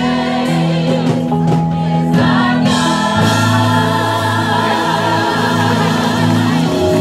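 Gospel choir of men and women singing together through microphones, holding long notes and chords.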